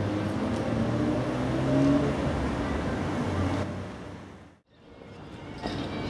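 Outdoor town ambience with a motor engine running steadily. The sound fades out to near silence about four and a half seconds in, then quieter harbour-side ambience fades back in.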